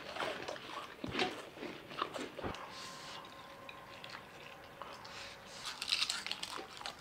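Two people eating fast, close to the microphone: irregular crunching of potato chips and chewing of noodles, with a denser run of crunches near the end.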